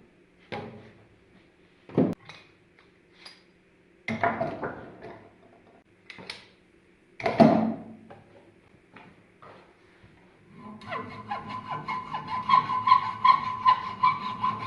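Hand-tool work at a workbench: a few scattered knocks and short scrapes, then from about eleven seconds a quick, even series of rasping strokes, about three to four a second.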